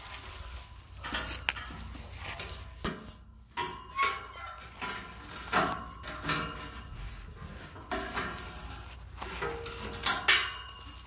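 Footsteps in slide sandals on a dry, leaf-strewn dirt path: irregular scuffs and crunches, with a few light metallic clinks among them.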